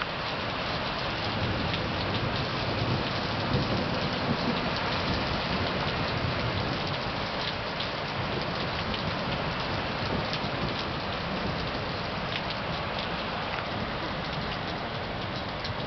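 Heavy rain falling steadily, with scattered drop ticks and a low rumble of thunder a few seconds in.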